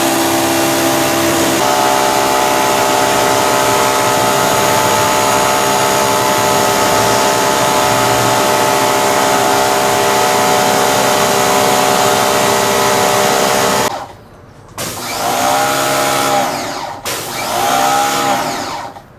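PAXCESS 3000 PSI electric pressure washer running under load, its motor and pump giving a steady whine over the hiss of the water jet. It cuts off suddenly about 14 seconds in, and short uneven bursts of sound follow.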